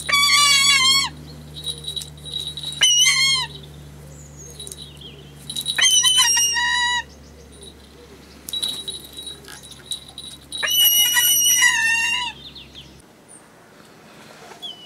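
Juvenile Harris's hawk calling: four bursts of rapidly repeated, high-pitched, wavering squeals, the longest near the end.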